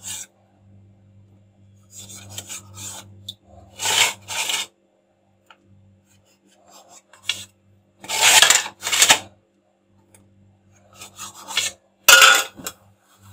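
Knife sawing through a vegetable sandwich's bread slices, short rasping strokes in bursts, the loudest pair about eight seconds in and another near the end.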